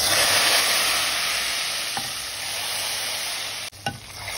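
A hot-oil tempering of fried onions, cumin and whole red chillies, poured from a frying pan into a pot of cooked urad dal and meat, sizzling loudly at once. The sizzle slowly dies down, with a brief break near the end.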